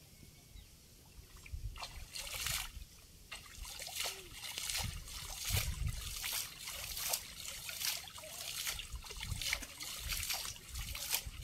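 Water splashing and trickling in irregular bursts as a fishing net is hauled in by hand through shallow, weed-choked floodwater. Quiet for the first second or two, then the splashing keeps up.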